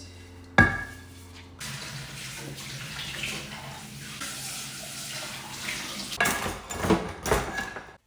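Kitchen mixer tap running into a stainless steel sink while a glass is rinsed. The water starts about a second and a half in, after a single sharp knock, and a few clinks and clatters of glass and dishes come near the end.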